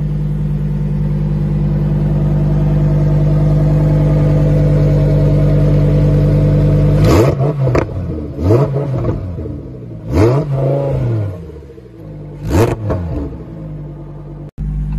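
Lamborghini Huracán's V10 engine idling steadily while stationary, then revved four times in quick blips, each one rising and falling in pitch, before settling back to idle.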